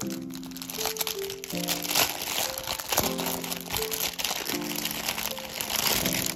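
Thin clear plastic packaging crinkling as it is handled and peeled open, over soft background music whose chords change about every second and a half.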